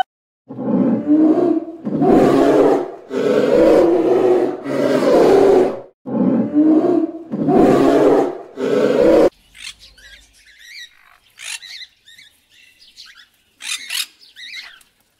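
Polar bear roaring: about six long, loud, rough roars one after another, ending about nine seconds in. Then macaws give short, high squawks and chirps, much quieter.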